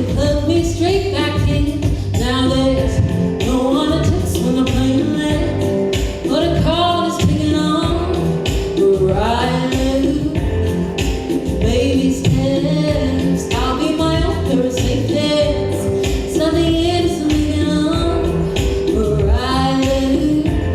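Live band music with a female lead singer and backing vocals, singing over a steady beat and bass.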